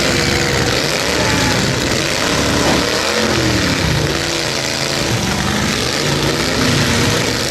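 Several demolition-derby truck engines running and revving at once, their pitches rising and falling over one another.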